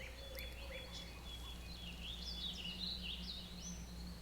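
Birds chirping and singing: many short calls that glide up and down, thickest in the middle, over a steady low hum.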